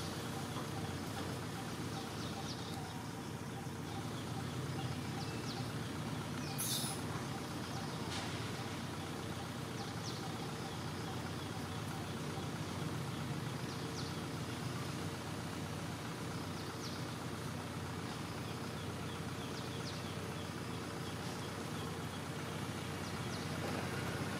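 Steady outdoor background noise with a low rumble, with a few faint short high chirps scattered through it and one brighter, rising chirp about a quarter of the way in.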